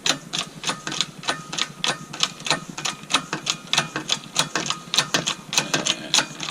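Even, rapid clicking, about three or four clicks a second, from the press tool being worked to push the old front control arm bushing out through the arm with a socket.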